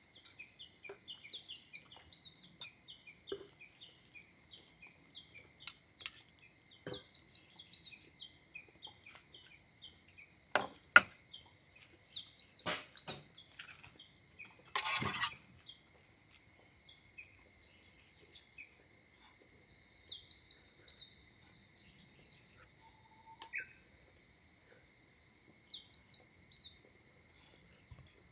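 Outdoor ambience of birds chirping in short repeated calls and insects trilling in a steady high hiss that grows louder about ten seconds in. A few sharp knocks stand out near the middle, the loudest about eleven seconds in.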